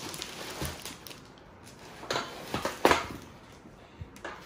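Plastic wrapping crinkling and rustling as a bagged tripod is handled and pulled from its packaging, with a few light knocks. The loudest rustles come about two to three seconds in.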